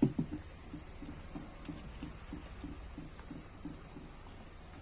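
Wet flour batter for pazham pori being beaten by hand in a tilted bowl: a steady run of soft slapping strokes, about three a second.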